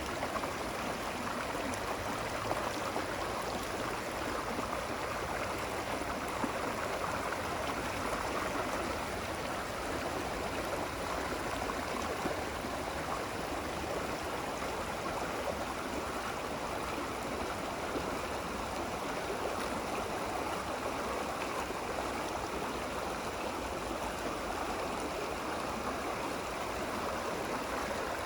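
Running water flowing steadily, an even rushing and gurgling like a stream.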